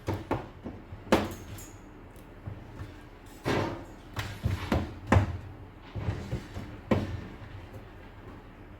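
Irregular knocks and clunks of parts being handled inside an opened Whirlpool tumble dryer during a heater replacement, about seven in all, spread unevenly.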